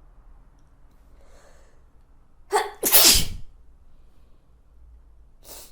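A person sneezing once, loudly, in two parts about halfway through, after a faint breath in. A short breath follows near the end.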